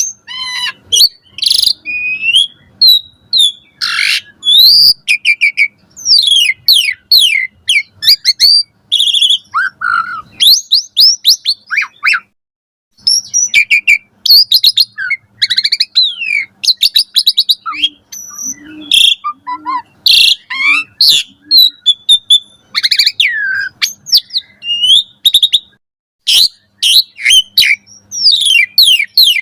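Asian pied starling in full, energetic song: a fast, varied run of clear whistles, rising and falling slurred notes, sharp chirps and rattling trills, broken by short gaps and one brief pause about twelve seconds in.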